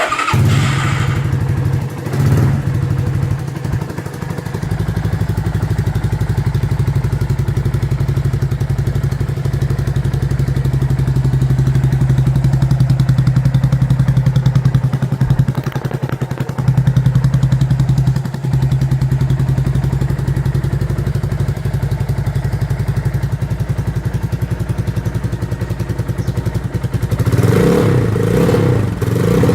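Shineray 200cc motorcycle's single-cylinder engine running through an aftermarket 'roncar' rumble exhaust, a steady low beat at idle. Near the end the throttle is opened and the engine revs up.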